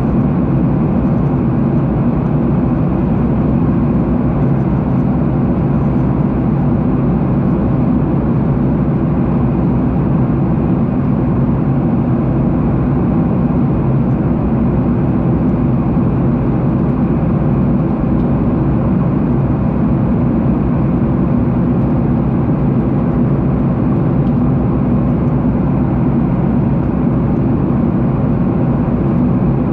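Steady low drone of a jet airliner's engines and rushing air, heard from inside the passenger cabin.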